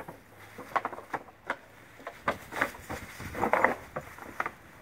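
Dry fallen leaves rustling and crackling in irregular bursts as a Bernese Mountain Dog roots through a leaf pile, loudest a little past the middle.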